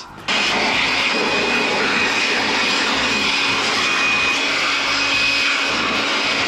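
Handheld electric blower switching on and running steadily at full power: a loud rush of air with a constant high whine and a lower hum underneath.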